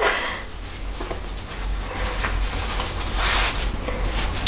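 Cloth rustling as a fabric scarf is handled and tied around a neck. The rustle swells near the start and again about three seconds in, over a low steady hum.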